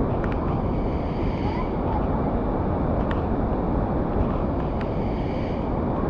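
Muddy floodwater pouring over a low weir and churning through a pool, a loud, steady rush of water.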